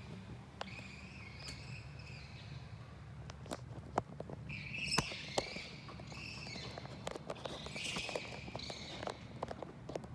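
An unidentified animal chirping in three high-pitched chattering bouts a few seconds apart, with scattered sharp clicks and a low steady hum underneath.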